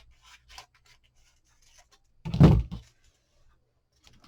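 Scissors trimming washi tape from the edge of a wooden board, with a few faint snips, then a single short, loud thump about two and a half seconds in as the board or scissors knock against the work surface.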